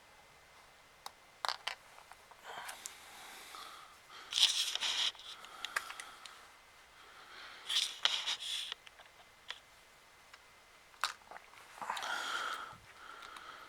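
Small plastic parts of a handheld game console being handled and pried apart: sharp clicks and short scraping, rasping strokes, the loudest about four and a half seconds in and again about eight seconds in.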